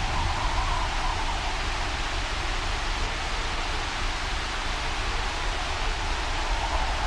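Steady rain-and-wind storm ambience: an even rushing hiss over a constant low rumble. A higher band of the rushing swells slightly near the start and again near the end.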